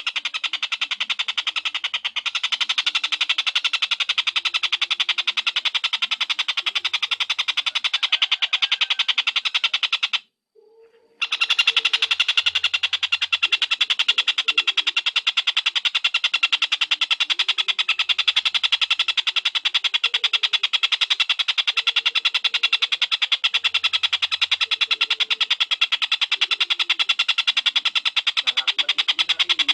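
Tengkek cililin (a small kingfisher, as kept and trained by Indonesian bird-keepers) calling in a long, fast, even trill of high repeated notes. The trill breaks off for about a second a third of the way in, then carries on unchanged.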